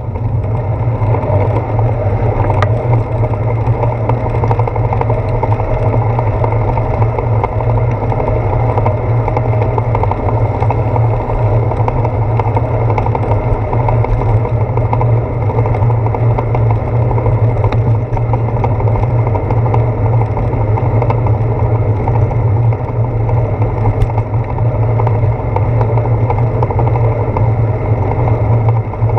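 Steady rumble of wind and road vibration picked up by a GoPro Hero 4 mounted on a bicycle's handlebar while riding on a wet road. Loud and even throughout.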